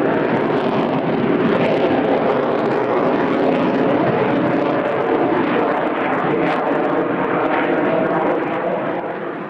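Sukhoi Su-57 fighter's twin jet engines: a loud, steady jet roar as it flies overhead, fading near the end.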